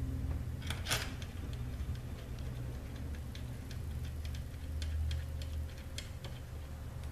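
Light metallic clicks and taps of bolts being started by hand into a CVT transmission valve body, irregular and a few a second, with a couple of sharper clicks about a second in and near the end, over a steady low hum.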